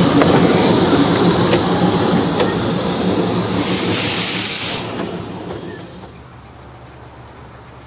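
Small 15-inch-gauge steam locomotive moving past close by, hissing steam over the clank of its running gear, with a louder burst of hiss about four seconds in. Near six seconds the sound drops to a much quieter, steady hiss.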